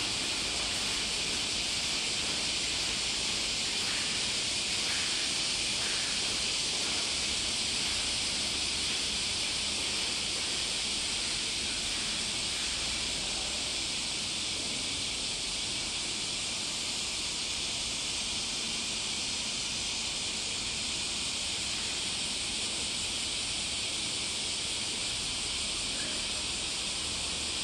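Steady high-pitched hiss of background noise, even throughout, with faint soft rustles now and then.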